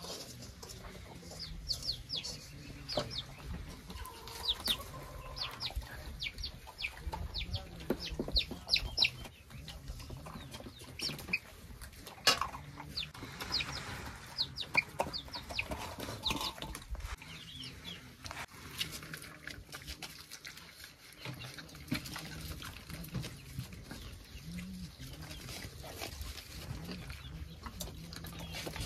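Chickens clucking and peeping, many short high chirps in quick succession, with a few sharp knocks in the background, the loudest about twelve seconds in.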